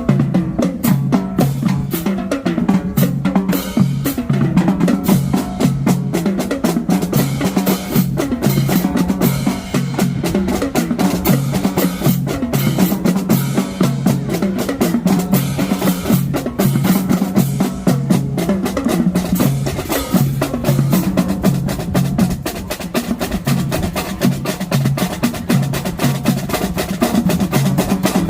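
Marching drumline playing a fast, continuous cadence: rapid snare drum strokes and rolls over marching bass drums that alternate between two pitches in a steady repeating pattern.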